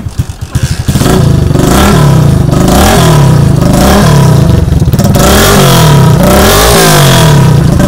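Hero Splendor's single-cylinder four-stroke motorcycle engine running through a free-flow silencer with its baffles (jali) removed: loud, open exhaust. In the first second the exhaust beats are heard one by one. After that the throttle is blipped again and again, the pitch rising and falling about once a second.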